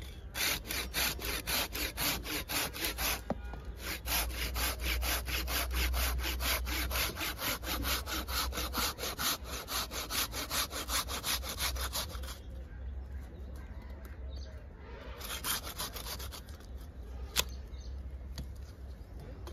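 Hand pruning saw cutting through a thick branch of a Celtis australis bonsai at the base of its trunk, in fast back-and-forth strokes of about four a second, with a short pause about three seconds in. The sawing stops about twelve seconds in, a few more brief strokes follow a few seconds later, and there is a single sharp click near the end.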